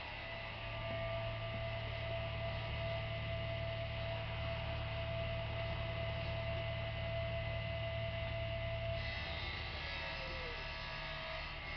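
A steady low hum with a thin, higher steady tone over it; both ease off about nine seconds in. A faint short falling note comes about ten seconds in.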